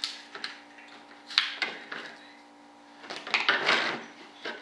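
A small hand tool prying and scraping modelling clay away from a part set in a clay parting board: several sharp clicks and knocks in the first second and a half, then a stretch of scraping about three seconds in.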